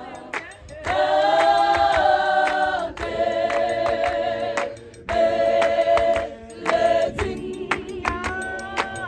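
South African clap-and-tap a cappella choir singing in harmony, holding long chords in short phrases over a steady beat of handclaps.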